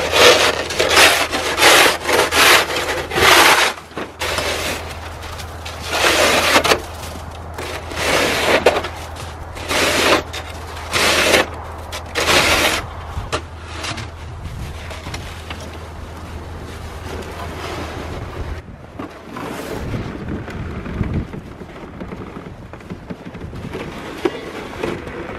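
Snow shovel scraping and pushing snow off the top of a picnic table: several quick scrapes in the first few seconds, then single strokes a second or two apart, dying away about halfway through. Quieter low rumbling follows near the end.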